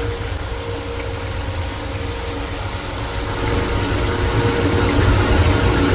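Boiler-room machinery running with a steady low drone.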